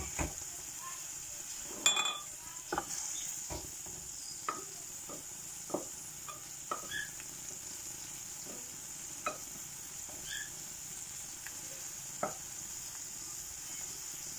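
Wooden spoon knocking and scraping against a steel karahi and a glass bowl as mashed cauliflower paste is stirred into the tuna masala, about a dozen separate knocks with the loudest about two seconds in, over a faint steady sizzle from the pan.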